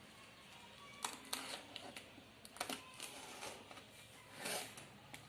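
Faint scattered clicks and a brief rustle of a cardboard TV carton being handled and opened.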